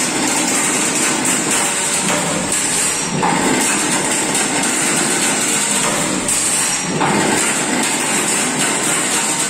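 Cam-type chain link fence machine running, a loud steady clatter that repeats in a cycle about every three seconds.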